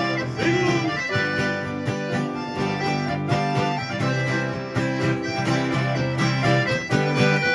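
Instrumental break of a sertanejo caipira song: plucked strings strumming a steady rhythm under an accordion melody, with no singing.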